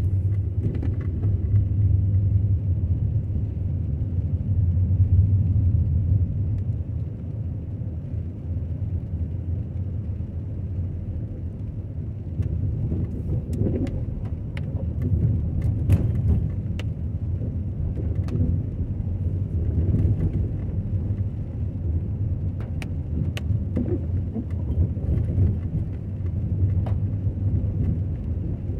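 Steady low rumble of a car driving on a wet road, engine and tyre noise heard from inside the cabin, with a few faint ticks scattered through it.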